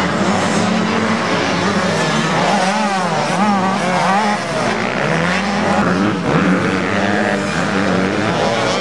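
85cc two-stroke motocross bikes racing on a dirt track, their engines revving up and down over and over as the riders work the throttle.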